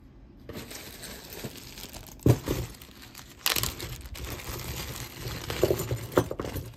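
A plastic zip-top bag of metal costume jewelry crinkling and rustling as it is handled and pulled open. The sound starts about half a second in and has several sharp crackles.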